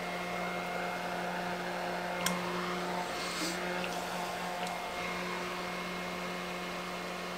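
Small battery-powered handheld fan running with a steady, even hum, held up close to the face.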